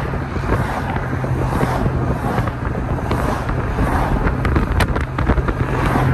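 Car driving: a steady low engine drone under tyre and wind noise, with a few faint clicks partway through.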